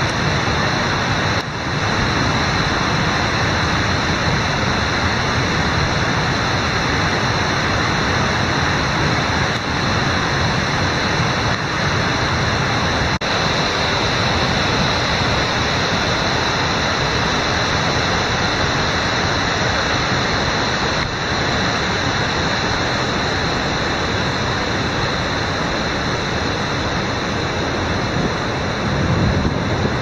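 Steady rushing of a tall mountain waterfall cascading down a rock cliff.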